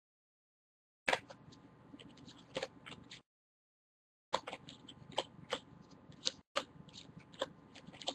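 Baseball cards being handled and sorted by hand: faint scattered clicks and rustles. The sound cuts in about a second in and drops out to dead silence twice.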